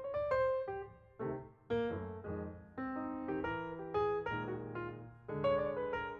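Background music: electric piano or keyboard playing chords and notes, each struck and fading.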